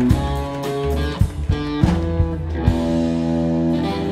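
Live rock band playing, with electric guitar to the fore over held bass notes and a few sharp drum hits.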